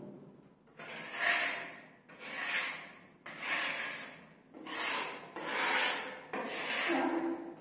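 A steel plastering spatula scraping wet plaster across a concrete wall, about six separate strokes roughly one a second.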